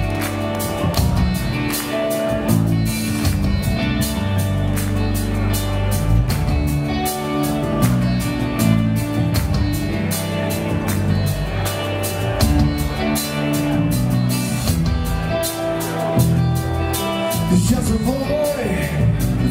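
A rock band playing live: electric guitars, keyboards and a drum kit keeping a steady beat. A singer's voice comes in near the end.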